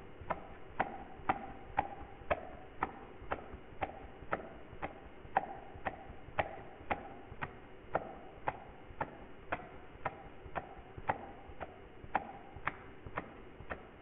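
One-handed clap: the loose fingers of a whipped hand slap against the palm, giving sharp snaps at a very even pace of about two a second, each with a short ring.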